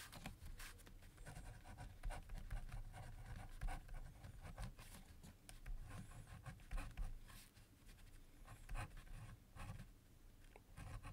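Pen writing on paper: a faint, irregular run of short scratching strokes as a word is written out by hand.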